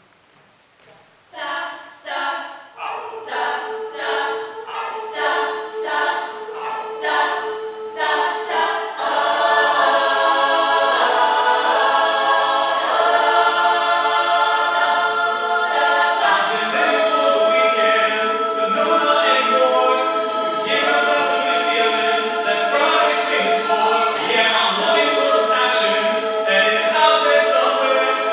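Mixed a cappella choir singing: short rhythmic chord stabs about twice a second over a held note, swelling about nine seconds in into full sustained chords, with lower voices joining about halfway through.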